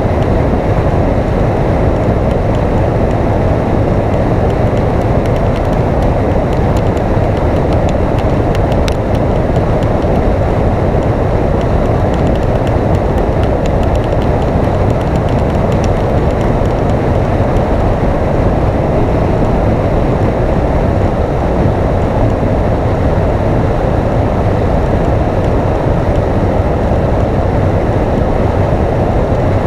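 Motorcycle cruising at highway speed: a steady rush of wind on the microphone, with engine and road noise underneath.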